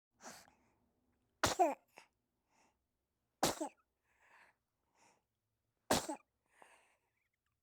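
A person sneezing three times, about two to two and a half seconds apart, each sneeze a sharp loud burst with softer breaths around it.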